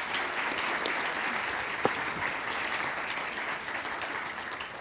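Audience applauding: a steady clatter of many hands clapping that begins to die away near the end.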